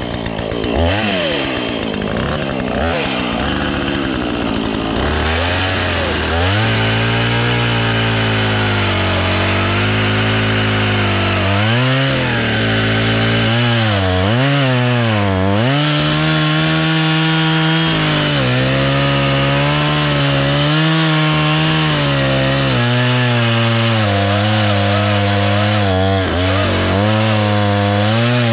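Husqvarna two-stroke chainsaw running at full throttle while cutting into a dead elm trunk, its engine pitch sagging under load and recovering again and again. The chain is dull, which the uploader says can be heard.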